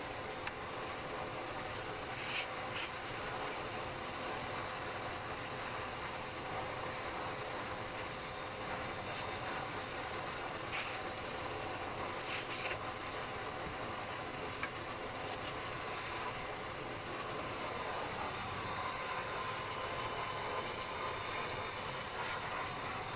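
Vacuum cleaner on a long pole nozzle running steadily with an even hiss and a faint steady whine, while it cleans dust off a jet's cockpit. A few brief rubbing sounds come through as the nozzle brushes the surface.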